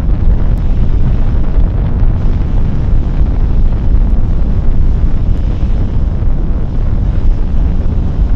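Space Shuttle main engines and solid rocket boosters at liftoff: a loud, steady rocket roar, deepest and heaviest in the low rumble.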